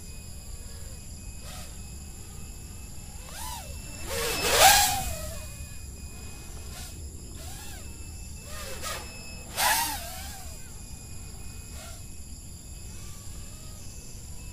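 A 5-inch FPV racing quadcopter on Dalprop T5051C propellers is flown hard and passes overhead again and again. Each pass is a motor whine that rises and falls in pitch with a rush of propeller noise. The loudest passes come about four and a half and ten seconds in.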